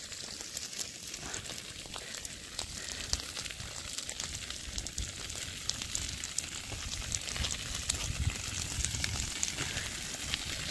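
Food frying in hot oil in a pan: a steady sizzle with many small sharp crackles and pops.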